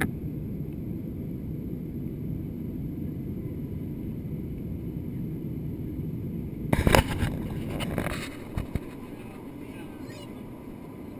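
Steady low roar of an airliner cabin during a low descent. About seven seconds in comes a brief loud rumble with knocks, after which the sound drops to a quieter cabin hum.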